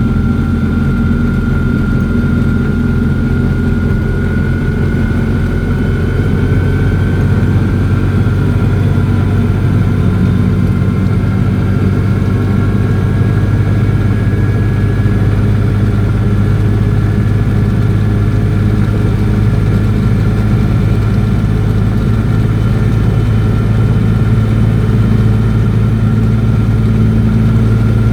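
Invacar's engine and drivetrain heard from inside the cabin while driving at a fairly steady speed: a loud, steady drone with a thin whine riding above it. The owner suspects a bearing going in the transmission.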